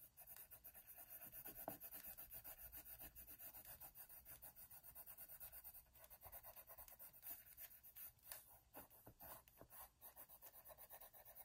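Orange Prismacolor colored pencil scratching on drawing paper in quick back-and-forth shading strokes, about five or six a second, laying a second layer of color, with short pauses about six and ten seconds in.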